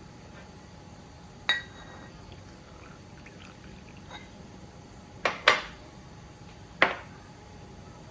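Spoon knocking against a small bowl while curry is mixed: one sharp clink with a brief ring about a second and a half in, then two knocks close together and a last one a little later.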